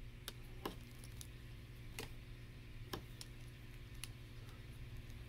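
Scattered sharp clicks, roughly one a second, of small Lego plastic pieces being handled and pressed together, over a faint steady low hum.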